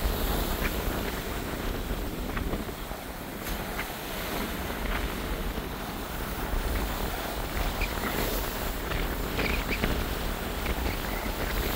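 Strong wind buffeting the microphone with a low rumble, over the wash of choppy surf breaking on a sandy beach.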